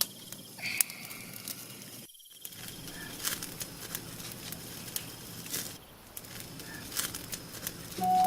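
Insects chirping with a thin steady high trill, over many scattered small clicks and taps; music comes in right at the end.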